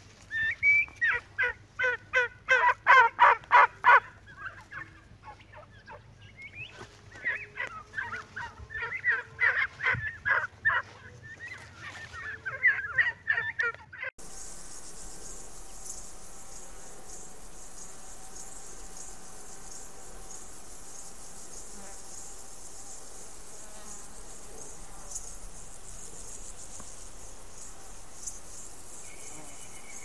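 Domestic turkeys gobbling in loud, rapid rattling runs of calls, several bouts over about fourteen seconds. Then, after a sudden cut, insects chirring steadily in summer grass.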